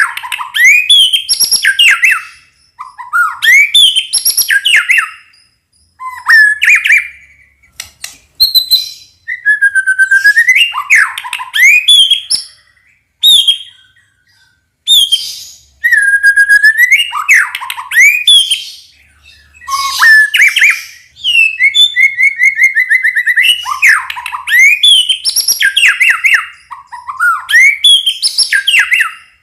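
White-rumped shama (murai batu) in full song: loud, varied whistled phrases of a second or two each with short pauses between, mixing swooping notes and quick runs of repeated notes.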